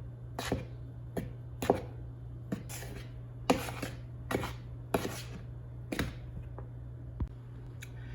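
A utensil stirring dry cake ingredients (flour, cocoa, sugar) in a mixing bowl, knocking and scraping against the bowl about a dozen times at an uneven pace, over a steady low hum.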